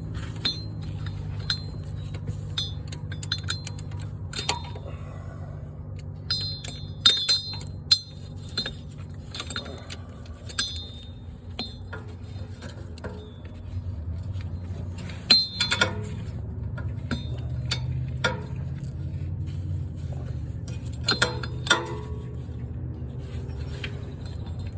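Steel socket extensions and a swivel joint clinking and knocking against each other and the engine in irregular, sharp metallic clicks with a ringing tone, over a steady low hum.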